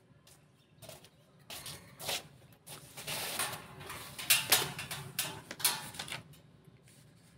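Footsteps, clothing and paper rustling, and a few sharp knocks as two people sit down on a perforated steel bench and settle in.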